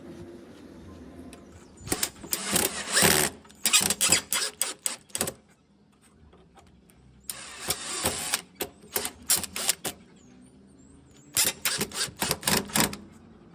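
Wood being worked by hand in three bouts of quick rasping strokes, several strokes a second, with short pauses between the bouts.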